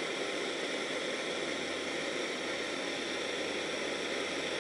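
Handheld gas torch burning steadily with an even hiss.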